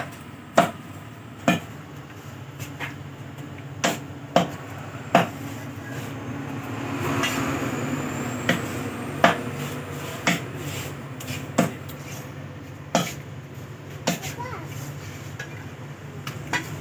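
Meat cleaver chopping raw chicken on a thick round wooden chopping block: about fifteen sharp chops at irregular intervals, some in quick pairs, with a lull of about three seconds in the middle.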